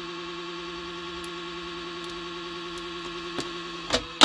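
PC motherboard speaker sounding one steady, unbroken electronic tone: a memory error alarm from a board powered on with no RAM installed. It cuts off with a couple of clicks near the end.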